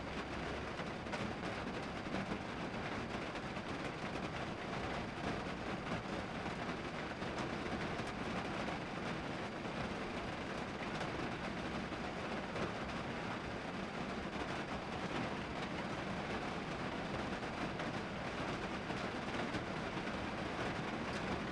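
Steady rain falling on a car's roof and windows, heard from inside the car: an even hiss with many small drop taps.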